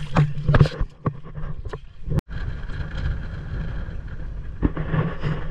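Water splashing around the river tube in the first second, then, after a sudden cut, the steady low rumble of a moving vehicle with wind on the microphone.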